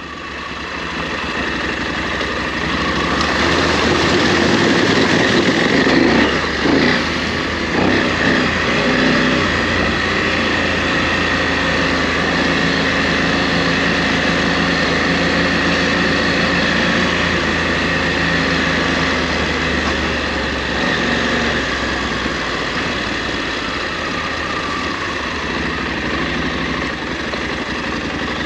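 KTM 890 Adventure R's parallel-twin engine running, with a few changes in pitch about six to eight seconds in, then running steadily.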